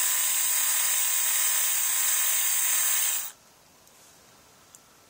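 Small electric screwdriver running steadily as it backs out a netbook's screen screws, then cutting off abruptly about three seconds in.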